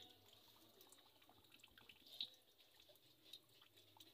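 Near silence, with a few faint scattered ticks and one slightly louder click about two seconds in.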